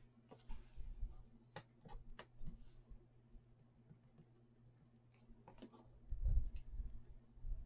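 Scattered light clicks and taps of paper pieces and tools being handled on a craft table, with a dull bump about a second in and another around six seconds in.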